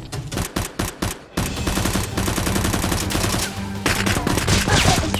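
Gunfire sound effects over background music: a few separate shots, then from about a second and a half in a dense run of rapid automatic fire.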